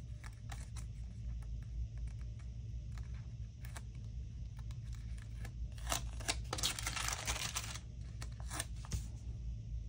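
Paper sticker handling: scattered light taps and rustles, with a longer rasping peel of a sticker off its backing sheet from about six to nearly eight seconds in, over a steady low hum.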